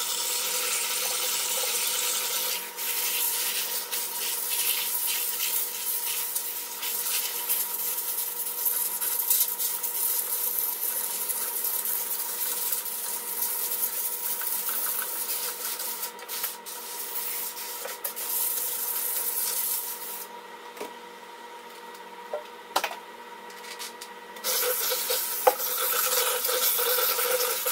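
Steam cleaner jetting steam into an ice machine's bin to sanitise it: a loud, steady hiss. The hiss stops about twenty seconds in, leaving a couple of small knocks, and starts again a few seconds later.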